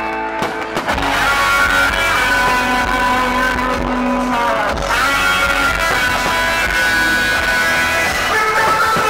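Rock music with electric guitar, playing steadily.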